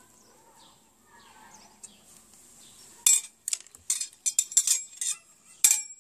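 Metal cake server cutting through a baked moussaka and scraping against the metal serving tray: a quick run of sharp scrapes and clinks starting about three seconds in, with one last sharp clink near the end. Faint birdsong before that.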